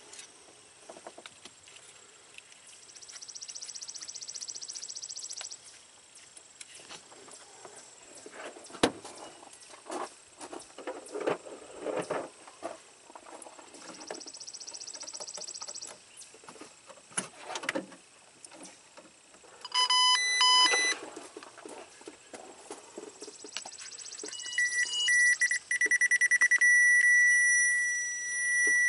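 Power Probe ECT2000 open/short circuit locator beeping: a short run of pulsed electronic beeps, then rapid beeping that settles into a steady high tone near the end, as the unit is held to the wiring harness. Before the beeps there are light clicks and rustling from the harness being handled.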